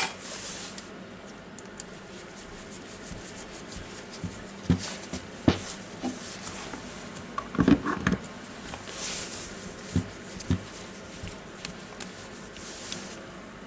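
Light scattered knocks, clicks and short scrapes of screws and a screwdriver being handled while the housing screws of a cordless impact wrench are fitted.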